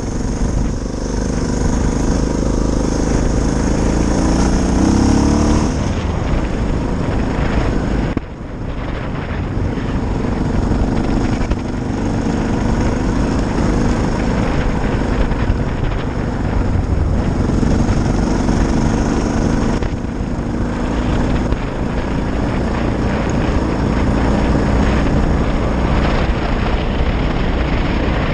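Suzuki DR650's single-cylinder four-stroke engine running steadily while the bike is ridden, with a brief dip in level about eight seconds in.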